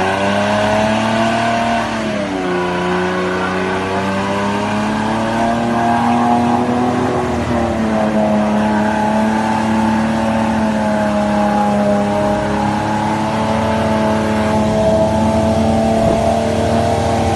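Toyota Land Cruiser 80 series engine running hard at high revs, driving under load; its pitch dips briefly about two seconds in, then holds high with small rises and falls.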